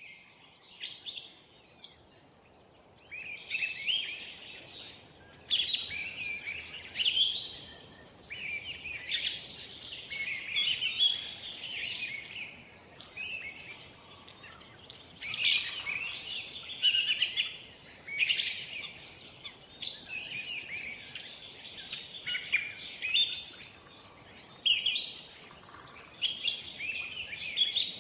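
Several birds singing and chirping at once, their short, quick phrases overlapping almost without a break, over a faint steady background hiss.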